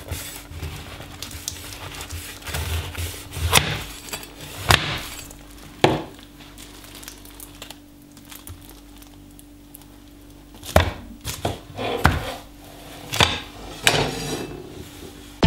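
A cleaver-style kitchen knife and a plastic-wrapped block of paper notes being handled on a wooden chopping board: about six separate knocks and clatters, with a quieter stretch in the middle, over a faint steady hum.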